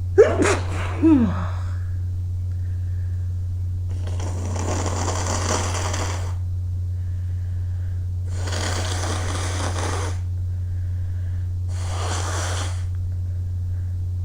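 A person sneezing, with a voiced cry that falls in pitch, then blowing his nose three times in long hissing blasts of about two seconds, the last one shorter. A steady low hum runs underneath.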